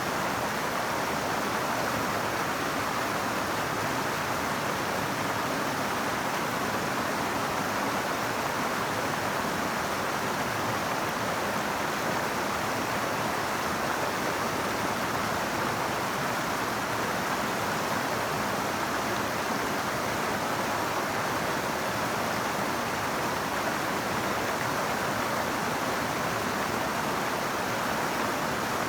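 River water flowing, a steady, even wash of water noise that does not change.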